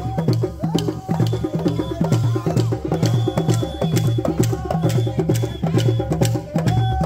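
Live Jola drumming: hand drums beaten in a fast, steady interlocking rhythm, with sharp wooden clicks of sticks struck in time.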